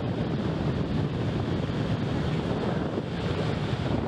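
Steady rushing roar of water pouring over Niagara's American Falls, with wind buffeting the microphone.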